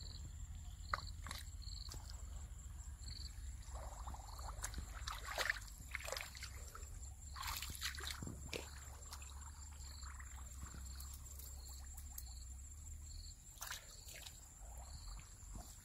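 Hands sloshing and groping in shallow muddy water, with scattered small splashes and squelches, clustered around the middle.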